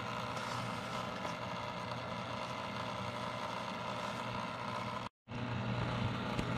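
Coralife BioCube nano reef aquarium's pumps and circulating water running: a steady low hum with an even rush of water, broken by a brief dropout about five seconds in.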